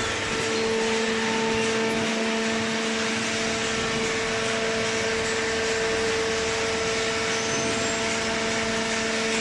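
A machine running steadily: a constant pitched hum over an even hiss, with no change in speed.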